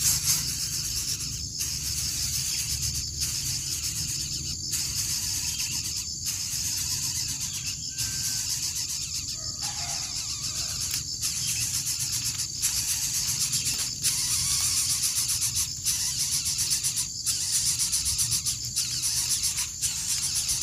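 Dense, high-pitched insect chirring, a fast steady pulsing drone with a low steady hum under it, broken by brief dropouts about every second and a half.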